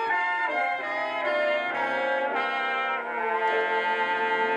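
Brass-band music, trumpets and trombones, played from a vinyl LP on a 1958 Dynavox portable stereo record player, settling into a long held chord about three seconds in.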